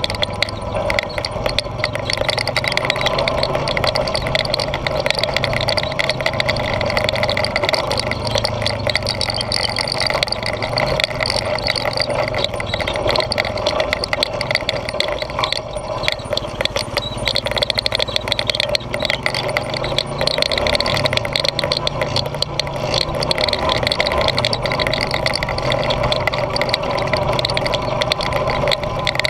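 Honda ATV engine running under way on a rough trail, its pitch stepping up and down now and then with the throttle, with frequent small knocks and rattles from the ride.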